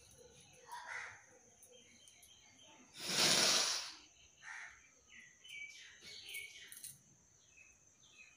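A single loud sneeze about three seconds in, lasting about a second, set off by tickling the nose with a blade of long grass. Faint chirps sound before and after it.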